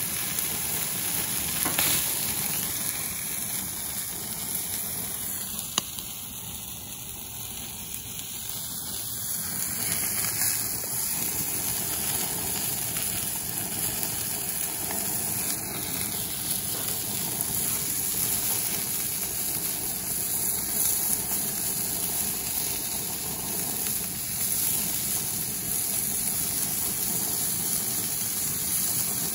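Baby octopus sizzling on a barbecue grill's grates over flaring flames: a steady hiss with a couple of sharp pops.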